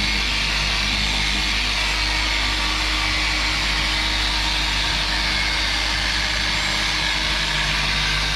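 Dual action car polisher running at a steady speed, buffing the paintwork.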